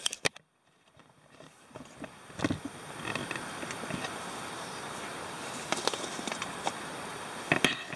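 Titanium alcohol stove burning with its flame in full bloom: a steady soft rushing hiss that rises over the first couple of seconds and then holds. There are a few light knocks of handling.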